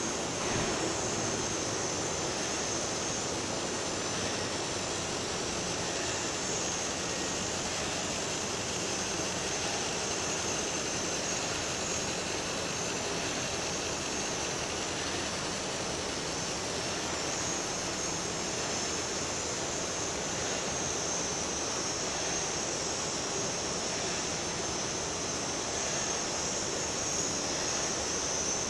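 Steady rushing noise like a hiss, even and unbroken, brightest high up, with no separate knocks or tones.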